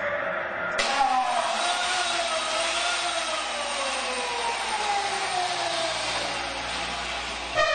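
Chainsaw engine running loud, its pitch sliding slowly down over several seconds after it starts abruptly about a second in: a haunted-house actor's chainsaw scare.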